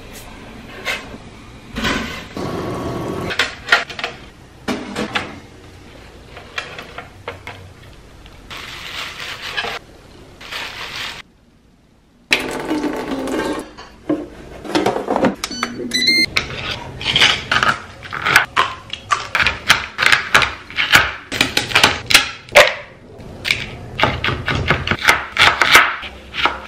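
Kitchen prep sounds: food and utensils being handled, then a long run of quick knife chops on a cutting board in the second half as a red onion is diced.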